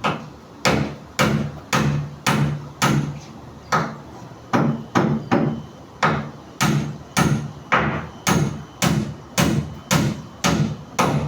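A hammer striking over and over at a steady pace of about two blows a second, each blow followed by a short low ring.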